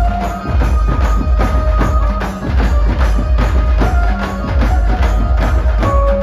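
Loud amplified procession music from a dhumal band: heavy bass under a fast, even drum beat, with a held melody line stepping between notes.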